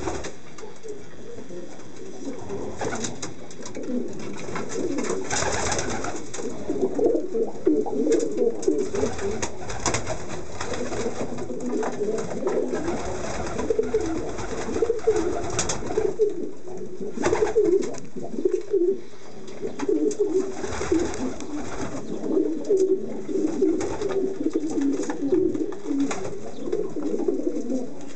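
Racing pigeons cooing in their loft: many overlapping low, warbling coos that run on without a break, with a few short clicks among them.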